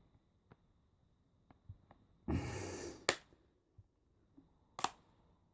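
Faint clicks as a Hudl tablet's plastic back cover is pressed and snapped into place around its edge, with a breath out a little over two seconds in and a sharper click near the end.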